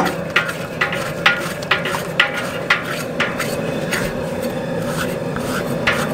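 Metal bell-type hog scraper scraping hair off a scalded hog's hide, in quick strokes about two a second that thin out after the first few seconds.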